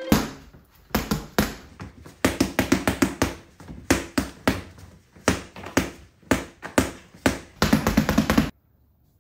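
Paint-covered boxing gloves punching a painting on a wall: an irregular series of sharp thuds, some in quick runs of three or four, ending in a fast flurry that stops abruptly.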